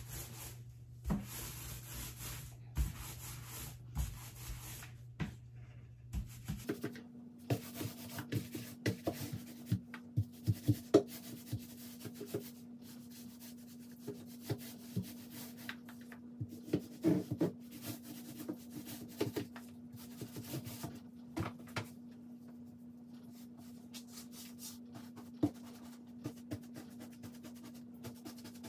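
Paintbrush strokes rubbing on a painted wood-panel wall, repeated scraping swishes with scattered sharp taps, over a faint steady hum.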